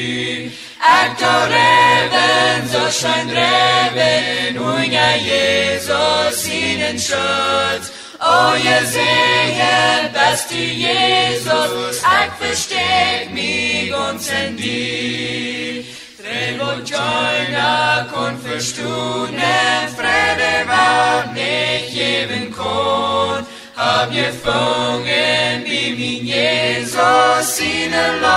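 Unaccompanied voices singing a slow hymn in Plautdietsch (Mennonite Low German), in long phrases with a short break about every eight seconds.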